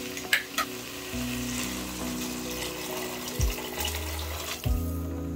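Rice sizzling in hot oil and pilau masala in an aluminium pot, with two sharp clicks near the start; later, cold water is poured in over the rice.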